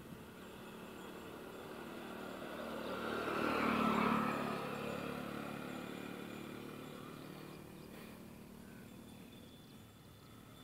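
A motor vehicle passing by: its engine and tyre noise grow louder, peak about four seconds in, then fade away.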